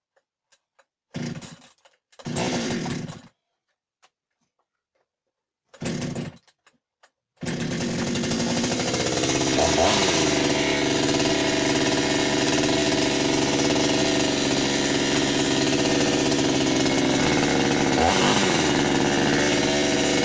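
Huter two-stroke petrol chainsaw being pull-started: three short pulls of the freshly repaired recoil starter, then the engine starts about seven seconds in and runs steadily, with two brief revs. It shows the repaired starter now works.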